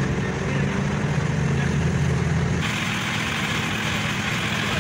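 Diesel engine of a Kato truck-mounted crane running steadily with a low hum. About halfway through the sound changes abruptly to a hissier engine noise without the low hum.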